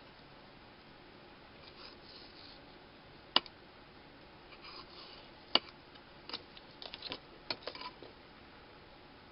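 Leatherworking tools being handled and set down on a work surface while cutting scrap leather: two sharp clicks about two seconds apart, then a quick run of small clicks and taps, with faint scraping in between.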